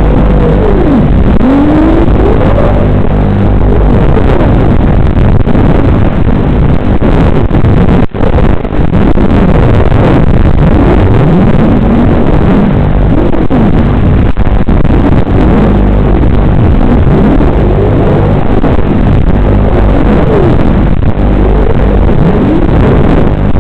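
FPV racing quadcopter's motors heard through the onboard camera's microphone over the analog video link: a loud, distorted, muffled buzz whose whine glides up and down as the throttle changes through the turns, with one brief dropout about eight seconds in.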